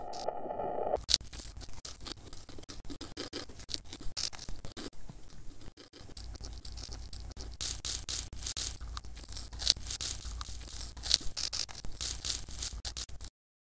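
Dense crackling and popping of a worn old film soundtrack with no narration. A steady held tone stops about a second in, a low hum joins about six seconds in, and everything cuts off suddenly near the end.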